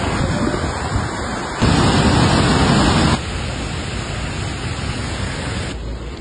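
Steady rushing of a fast, muddy flood-swollen river, a hiss with no distinct events. It jumps louder about a second and a half in and drops back abruptly about three seconds in.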